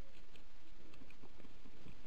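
Rustling and small irregular crackles of brush and twigs as a person pushes through woodland undergrowth, with low rumbling handling noise on the body-worn camera.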